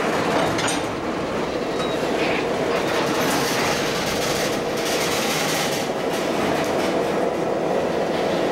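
Freight train's covered hopper cars rolling past close by: steel wheels running on the rails in a steady, even noise with some clickety-clack.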